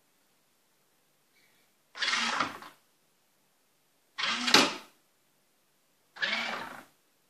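Bait hopper on a remote-control bait boat being swung open and shut by its motor, three short mechanical clattering whirs about two seconds apart.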